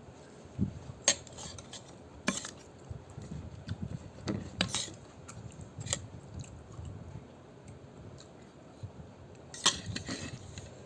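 Eating utensils clinking against a noodle bowl about five times, between soft sounds of chewing noodles.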